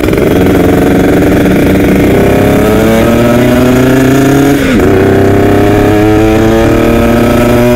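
Kawasaki Ninja RR 150 two-stroke single-cylinder engine accelerating hard, its revs climbing steadily. About four and a half seconds in, the pitch drops sharply at an upshift, then climbs again.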